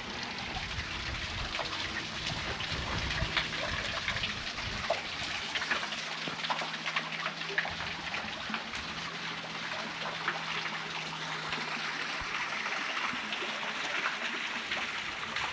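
Small waterfall splashing and trickling steadily onto rocks, a continuous rush of water with fine crackling spatter.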